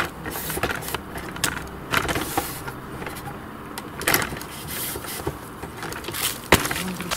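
Handling noise of recording gear being set up: scattered sharp clicks and knocks, about half a dozen, over a low rumble.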